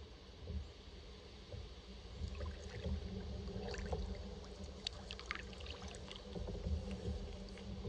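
Kayak paddling on calm water: small drips and splashes from the paddle come mostly around the middle, over a low steady rumble.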